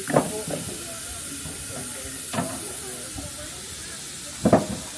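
Steady high hiss of steam escaping from a standing steam locomotive, the 1899 Neilson Reid tank engine 'Lord Roberts'. A few short, sharp louder sounds stand out about once every two seconds.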